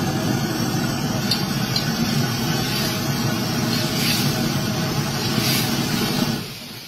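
Wok cooking over a gas burner: a steady roar and hiss of burner flame and food sizzling with steam, with a few light clicks, dropping away about six and a half seconds in.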